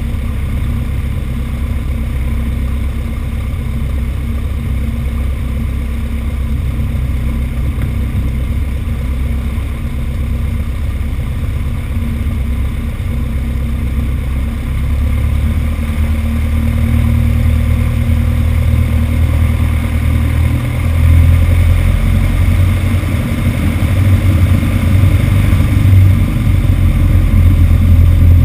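Light aircraft's piston engine and propeller running at taxi power, a steady low drone that grows louder about two thirds of the way through as power is added.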